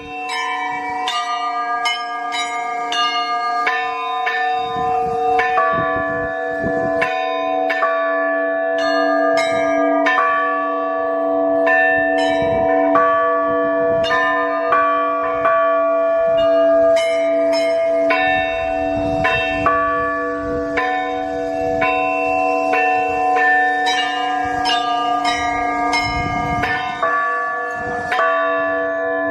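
Easter peal from the belfry of the Kazan Cathedral: many Orthodox church bells rung together, smaller bells striking quick, busy patterns over the steady ringing of the larger bells.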